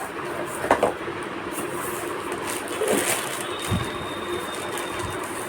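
A motherboard being taken out of its cardboard box and packaging: scattered rustles and light knocks over a steady background hiss, with a soft thump about two-thirds of the way through.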